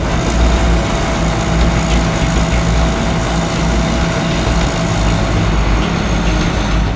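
Case IH Axial-Flow 2388 combine harvester running steadily while unloading rye through its auger into a trailer: loud, continuous engine and machinery noise with a low hum.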